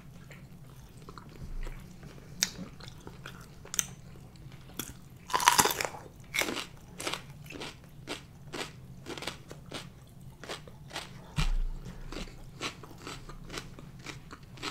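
A person bites into a raw jalapeño pepper with a loud crunch about five seconds in, then chews it with crisp crunches, about two or three a second.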